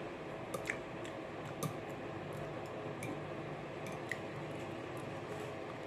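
Someone eating instant cup noodles with chopsticks: soft mouth and chewing sounds with a few small clicks, over the steady hum of an electric fan.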